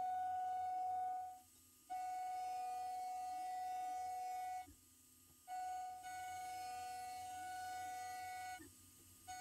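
CNC milling machine's end mill cutting aluminium with a steady high-pitched whine. The whine cuts out briefly three times and starts again sharply.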